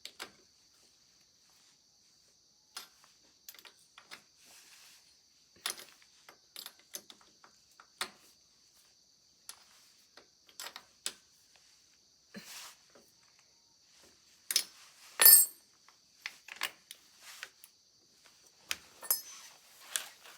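Scattered clicks, taps and knocks of hand tools and small metal bicycle parts being handled, with a sharper clatter about two thirds of the way in, over a faint steady high-pitched tone.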